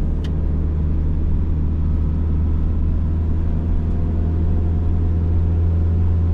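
Vehicle engine running at a steady speed while riding along a road: a loud, even low hum that does not change in pitch.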